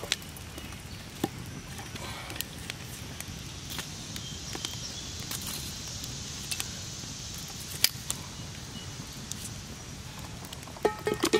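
Campfire crackling, with scattered sharp pops. Near the end, metal tongs knock and clink against the burning logs several times in quick succession as the fire is stoked.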